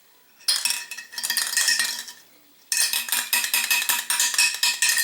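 A glass marble agitator ball and a couple of BBs rattling inside an opened spray paint can as it is shaken. Two spells of rapid clinking with a short pause between them.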